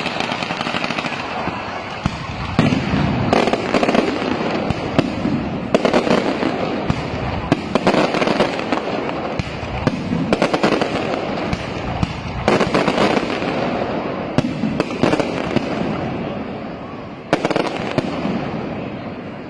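Night mascletà fireworks display: aerial shells bursting in quick succession, sharp bangs about every second or so over a continuous crackle.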